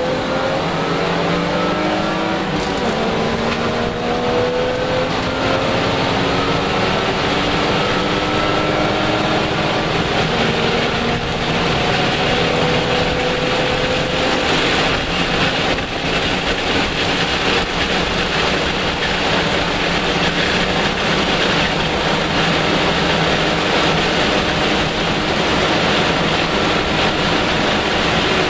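Lexus IS300 race car's inline-six engine heard from inside the cabin at sustained high speed, its pitch climbing slowly over the first few seconds, then held steady under loud wind and road noise.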